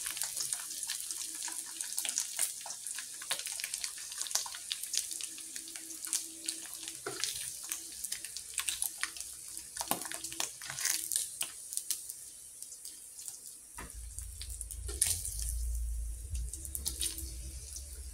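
Dried yellowstripe scad frying in shallow oil in a wok: a steady sizzle with many small crackles and pops of spattering oil. A low rumble joins in for the last few seconds.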